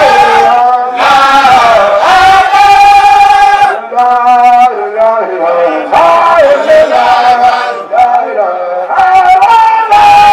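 Male voices singing a religious chant in phrases of about two seconds, with long held notes that bend in pitch.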